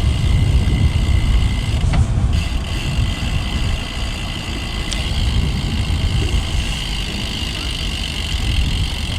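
Riding a road bike: wind rumbling on the microphone and road noise, with a steady high buzz that drops out for a moment about two seconds in.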